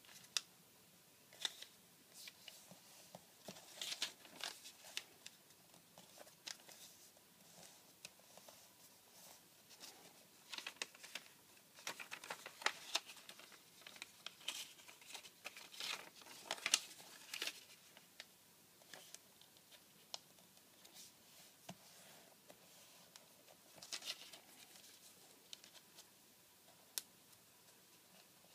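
A sheet of origami paper being folded and creased by hand: faint, irregular crinkling and rustling, with short crisp clicks here and there.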